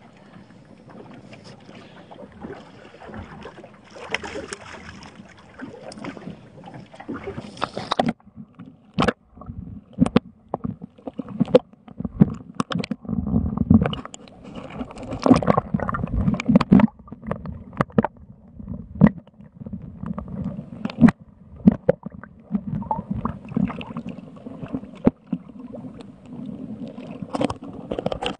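Water sloshing and gurgling around a waterproof action camera at the sea surface beside a boat's hull. A steady hiss gives way, about eight seconds in, to frequent irregular knocks and low surging splashes as the housing goes in and out of the water.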